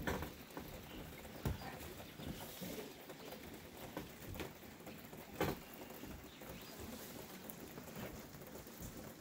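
Rain pattering and dripping on clay roof tiles: a soft, even patter dotted with single drops, the clearest about five and a half seconds in.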